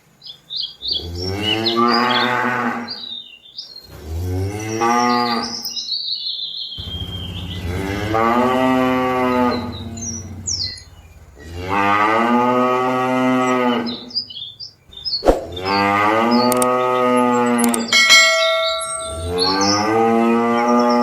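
Cattle mooing: six long, loud moos one after another with short pauses between them.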